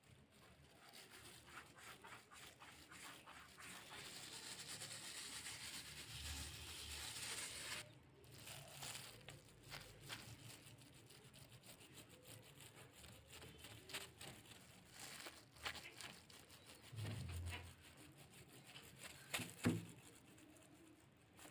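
Soft hiss of dry flour being sprinkled over oiled paratha dough, then faint scraping and light taps of a kitchen knife cutting the dough into strips against the countertop, with a couple of sharper knocks near the end.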